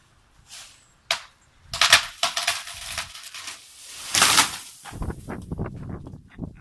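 A felled tree coming down: a sharp crack about a second in, then the crown rushing through branches with loud swishes, and a rapid flurry of snapping and knocks as it lands.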